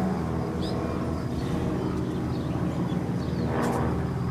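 Piston engines of a formation of vintage propeller planes flying past, a steady drone of several low tones.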